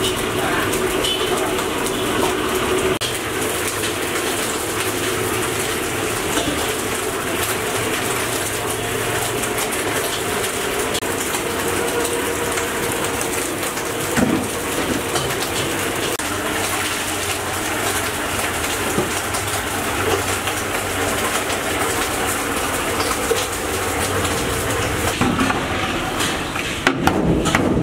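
Steady noise of a street-food kitchen: a gas burner running under a pot of boiling water, with a few knocks of steel pots and bowls, most of them near the end.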